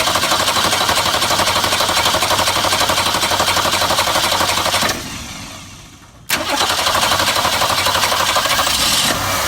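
1966 Ford Mustang's 200 cubic-inch straight six cranking on the starter, unprimed, so the mechanical fuel pump has to fill the freshly fitted Holley one-barrel carburetor. It cranks for about five seconds, stops briefly, cranks again for about three seconds, and near the end catches and settles into a steady run.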